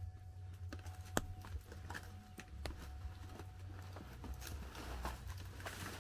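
Banana leaves and dry leaf litter rustling and crackling as they are gathered and lifted by hand, with scattered snaps; one sharp crack about a second in is the loudest. A steady low rumble runs underneath.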